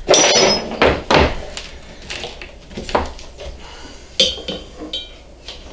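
Bent metal tubing handled and fitted against the compressor parts, metal clanking and clinking: a loud clatter at the start, then several lighter knocks, each with a short metallic ring.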